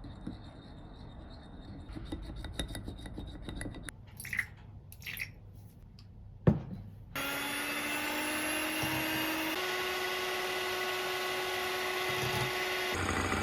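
Low rubbing and scraping handling sounds with a few light clinks, then one sharp knock. Background music with held tones comes in a little after halfway.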